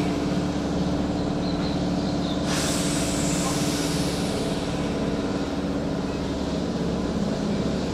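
Keihan electric commuter train standing at a platform, its onboard equipment giving a steady hum. About two and a half seconds in, a hiss of released air starts and slowly fades, typical of the air brakes releasing or the door engines before departure.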